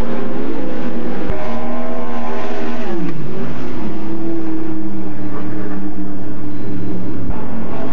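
410 sprint car V8 engines running. The pitch drops around three seconds in as an engine slows, then settles into a steady drone. The sound jumps abruptly about a second in and again near the end.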